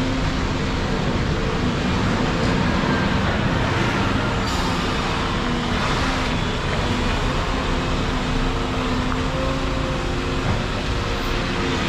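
Volvo 235EL excavator's diesel engine running steadily as the machine swings and works its bucket. Road traffic passes close by, a bus near the middle and then a car.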